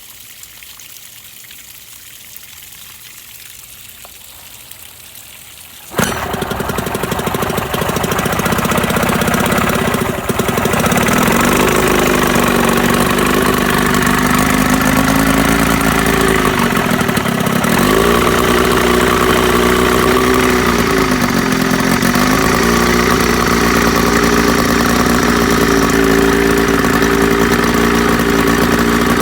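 Two-cylinder outboard motor, freshly rebuilt and pull-started for the first time in ten years, catches suddenly about six seconds in and keeps running, its speed sagging and picking up again several times.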